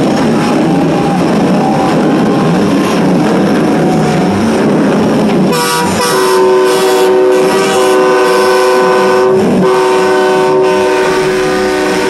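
Semi-truck air horns honking as the trucks pass: a loud, dense din at first. About five and a half seconds in, a multi-note horn chord starts and holds, with one short break a few seconds later.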